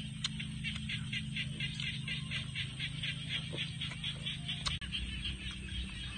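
Frogs calling at night: a rapid, even pulsing of high calls over a steady low hum. One sharp click comes a little before five seconds in.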